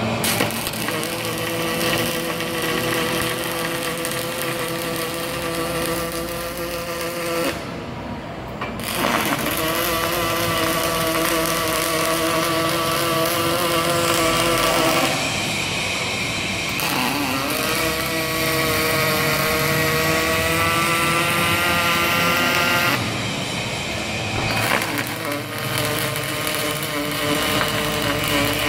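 Robotic MIG welding arc, buzzing and hissing steadily in runs of several seconds, with a short break about 8, 16 and 24 seconds in.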